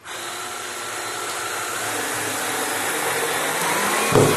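Cordless drill driving a wood screw at an angle into a timber beam (a toenail screw). The motor whirs on suddenly and runs steadily, growing slowly louder as the screw bites in, with a heavier surge near the end.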